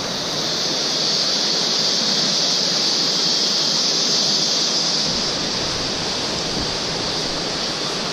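Steady rainforest ambience: a constant high-pitched hiss that swells slightly in the middle.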